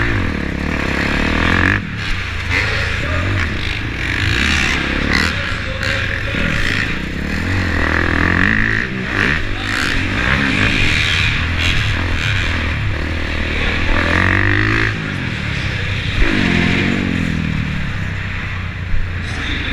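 Dirt bike engine revving up and falling off again and again as the rider accelerates and backs off around the track, heard close up from the rider's helmet camera. A sharp knock stands out about three-quarters of the way through.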